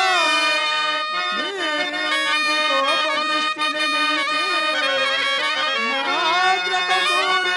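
Stage-drama accompaniment music on reed instruments, most likely a harmonium: sustained reedy chords over low drone notes, with a melody that slides and bends between pitches.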